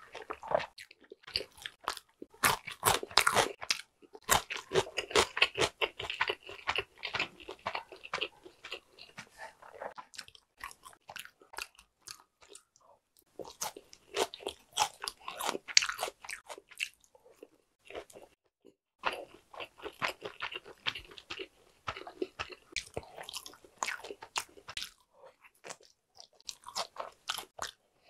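A person chewing sushi close to the microphone: wet, clicking mouth sounds in runs of several seconds, with a couple of short pauses between bites.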